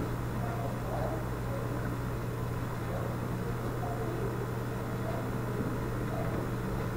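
Steady low hum with an even hiss of room noise behind it.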